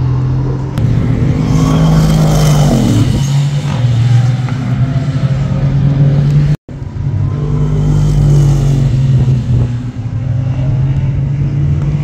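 Aston Martin Vantage race car's twin-turbo 4.0-litre V8 running hard on track, its pitch stepping up and down through gear changes. The sound breaks off for an instant about six and a half seconds in, then the engine is heard again.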